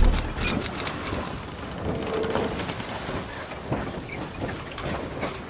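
Logo-intro sound effect: a low boom at the start, then a crackling, rain-like hiss with scattered clicks and a few faint high sparkly tones in the first second or so.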